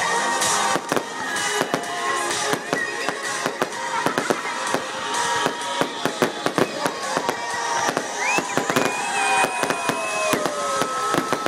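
Aerial fireworks going off: a rapid, irregular string of sharp cracks and pops.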